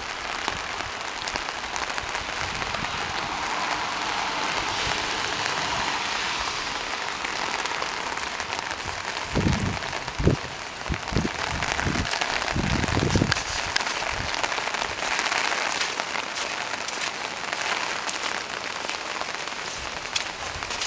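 A steady hiss of water, with a few short low thumps about halfway through.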